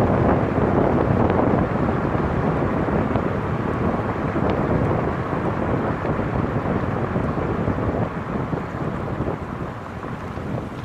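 Wind rushing and buffeting over the microphone of a roof-mounted camera on a moving car, with road noise underneath; it eases a little near the end.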